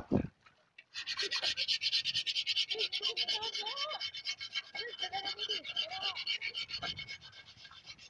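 A large metal wok being scrubbed by hand in shallow water and wet sand. The scrape is fast and even, starting about a second in and easing off near the end.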